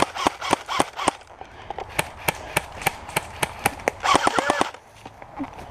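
Airsoft guns firing a rapid string of single shots, quickest in the first second, then keeping up a steady pace of about four shots a second before stopping shortly before the end.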